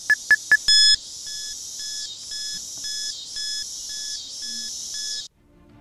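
Electronic beeps of a robot's targeting display sound effect: three quick loud beeps and a longer tone, then a softer beep about twice a second over a high electronic hiss. It cuts off suddenly near the end.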